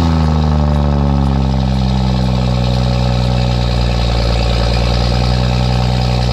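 BMW F30 335i's turbocharged inline-six with the rear muffler deleted, just after a cold start: the revs fall from the start-up flare over the first couple of seconds, then settle into a loud, steady fast cold idle.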